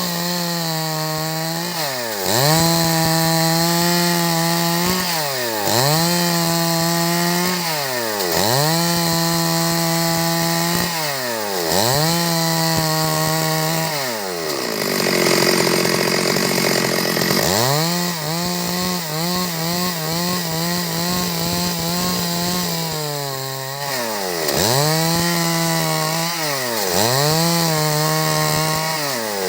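Stihl MS 382 two-stroke chainsaw sawing wood at high revs. Its pitch dips sharply and climbs back about every three seconds, with a longer dip about halfway through.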